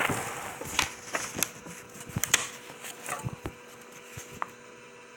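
Scattered light clicks and taps of close handling, thinning out after about three and a half seconds, over a faint steady hum.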